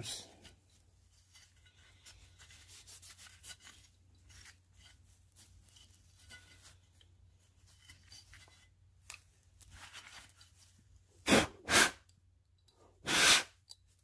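Faint rubbing and scratching of a brush on a gas furnace burner. Near the end come three short, loud rushing sounds, two close together and a slightly longer one.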